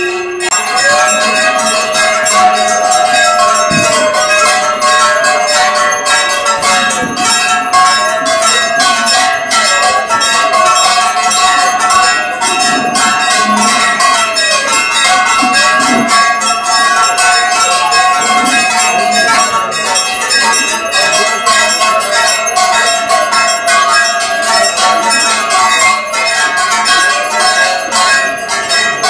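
Puja bells rung rapidly and without pause for the evening arati, a dense clanging ring. Over it, a long note swells and falls away again and again, about every three seconds.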